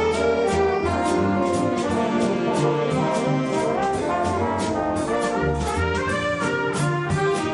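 Big band playing a waltz: saxophones, trombones and trumpets in held chords over a steady cymbal beat.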